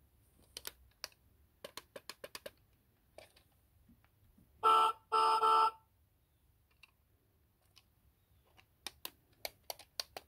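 Plastic switches on a children's electric ride-on car clicking several times, then two electronic beeps from the car's speaker, a short one and a longer one right after it. More button clicks near the end as the car's handheld remote is pressed.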